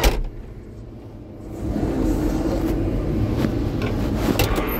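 A sharp knock at the start, then a heavy machine's diesel engine heard from inside its cab: it runs quietly, gets louder about a second and a half in, and stays steady, with a couple of light clicks near the end.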